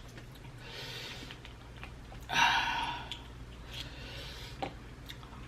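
Mouth and breathing sounds of a person eating very spicy prawns: soft breaths, a loud breathy exhale a little over two seconds in, and a few small clicks.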